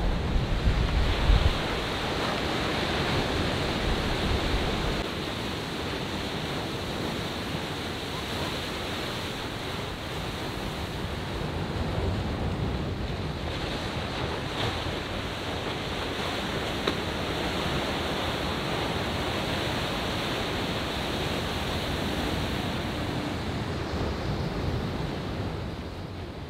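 Steady wash of ocean surf breaking, with wind buffeting the microphone, the low wind rumble heaviest in the first second or two.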